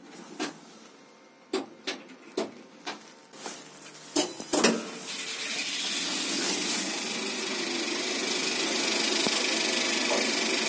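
A series of sharp knocks and bumps, then about five seconds in a lift's electric traction machine (motor and gearbox) starts a steady mechanical whirr that builds over about a second and then holds.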